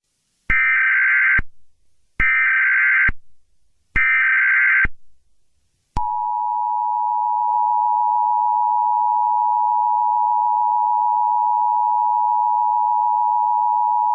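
Emergency Alert System broadcast tones: three short bursts of SAME digital header data, about a second each, then a steady two-tone EAS attention signal held for about eight seconds, which announces an emergency message.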